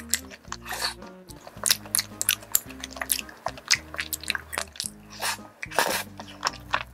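Close-up chewing of carbonara tteokbokki, chewy rice cakes in cream sauce: many short, wet mouth clicks and smacks. Background music with low, steady bass notes runs underneath.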